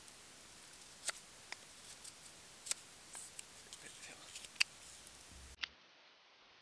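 Knife blade whittling a small wooden peg: irregular sharp cuts and scrapes as shavings come off, about half a dozen strong ones, over a faint steady hiss.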